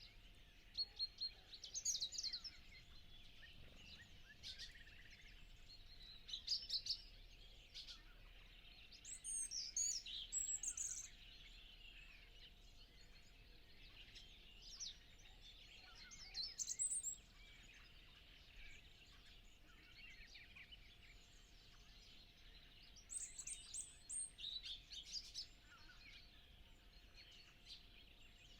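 Dawn chorus of many songbirds chirping and singing together, with louder song phrases from nearer birds breaking out every few seconds.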